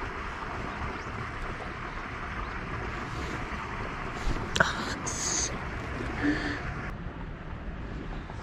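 Steady outdoor background noise, the kind wind on the microphone makes, with one sharp click about halfway through and a short high hiss right after it.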